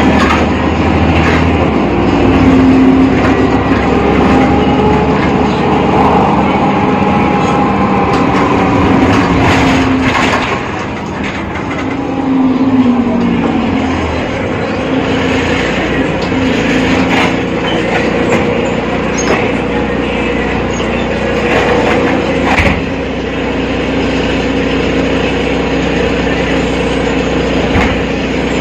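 BredaMenariniBus Avancity Plus city bus with a ZF gearbox under way, its drivetrain rumbling, with whining tones that glide up and down in pitch as speed changes and scattered rattles and clicks. The unusual whine is the strange sound this bus is known for.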